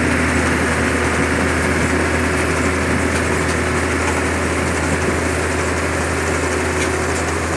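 Tracked combine harvester running steadily as it cuts soybeans: a loud, even engine drone with the machinery's hum, unbroken throughout.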